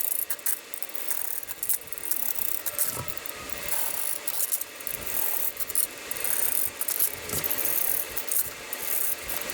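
Steel bolts and coupling nuts being threaded together by hand, with irregular metallic clicking and scraping of small hardware.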